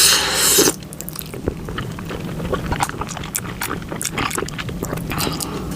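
A loud rushing hiss cuts off under a second in. Then comes close-miked chewing of a mouthful of Buldak ramen with egg and cheese sauce: many short, irregular mouth clicks.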